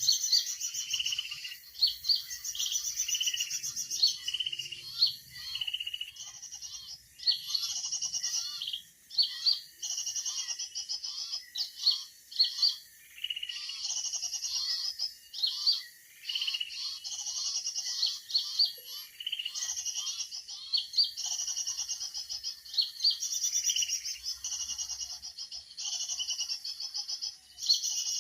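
Jinjing batu (black-winged flycatcher-shrike) calls: short, high phrases repeated again and again every second or two, with fainter chirping lower down beneath them.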